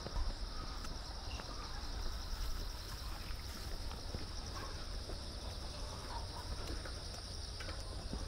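Steady high-pitched chorus of insects trilling in the grass, with a low rumble underneath and a few faint clicks.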